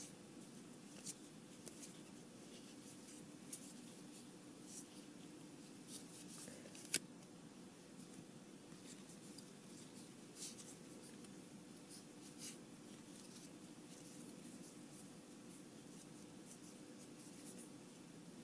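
Trading cards slid and flipped through by hand: faint, scattered ticks and soft rubbing of card against card, with one sharper click about seven seconds in, over a faint steady hum.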